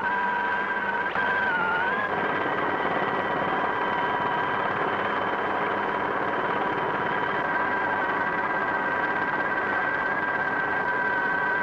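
Helicopter turbine engine whining steadily over a rushing noise, its pitch dipping briefly and recovering about a second and a half in.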